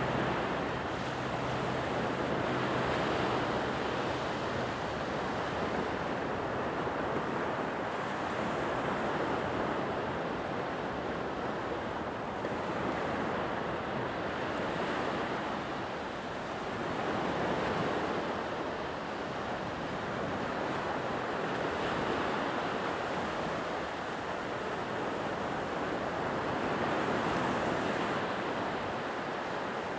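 Surf breaking on a sandy beach: a steady rush of water that swells every four to five seconds as each wave comes in and washes up.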